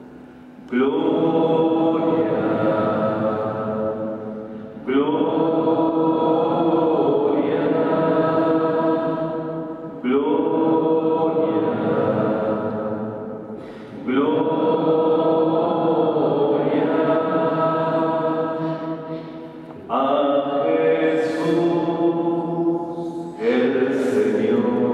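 Slow Spanish Catholic hymn sung in long held phrases of about four to five seconds each, each phrase starting suddenly and fading at its end. A priest's voice leads at a microphone.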